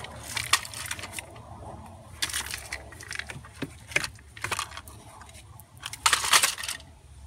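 Pea-sized pebbles rattling and crunching as they are pushed and scooped with plastic toy construction trucks, in several short bursts, the loudest about a second before the end.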